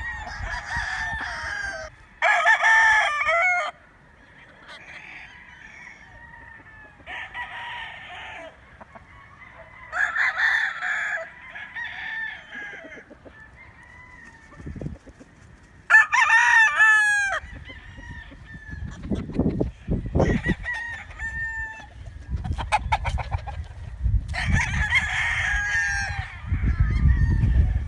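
Roosters crowing in turn, about six crows through the stretch, with hens clucking between them. A low rumbling noise joins in the second half.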